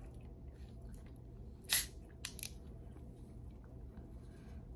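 The cap of a 20-ounce plastic bottle of carbonated soda is twisted open. Less than two seconds in there is a brief sharp hiss as the gas escapes, followed by a couple of faint clicks.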